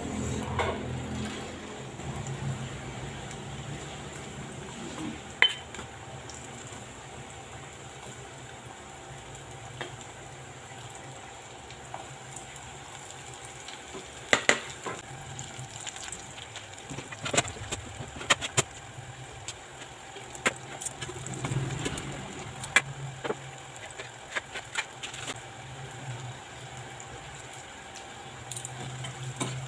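Breaded cauliflower pieces deep-frying in hot oil in a stainless steel saucepan, a steady sizzle. Metal tongs clink now and then against the pot as the pieces are turned.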